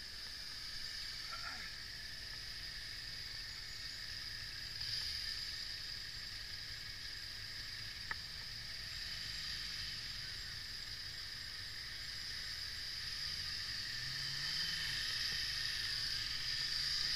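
Road riding noise on a motorcycle-mounted camera in city traffic: a steady hiss of wind and road noise over a low engine rumble, with a single sharp click about eight seconds in and an engine note rising and falling near the end as the bike moves off.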